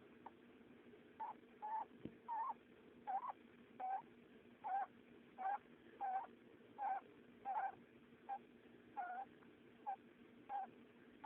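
Pet hamster snoring in her sleep: a regular run of short, squeaky snores, a little more than one a second, over a faint steady hum. The owner takes the snoring for sleep apnea.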